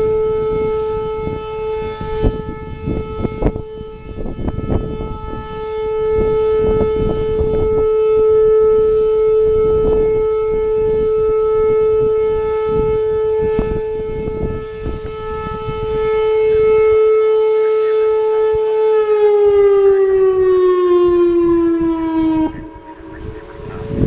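Whelen 2905 electronic outdoor warning siren sounding its steady alert tone. Near the end the tone winds down, falling in pitch for a few seconds, and then cuts off as the test tone ends.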